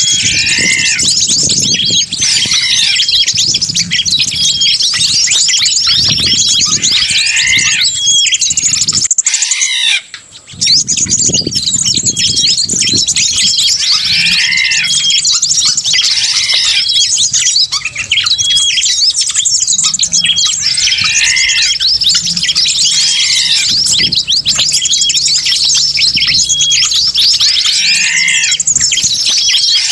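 Bird-lure (pikat) recording of many small wild birds calling at once: a dense, noisy chatter of high chirps and squawks, with a call that repeats every couple of seconds. It drops out briefly about ten seconds in.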